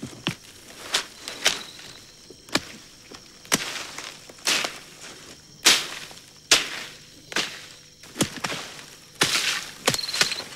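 A hand hoe chopping into loose soil, a sharp strike about once a second.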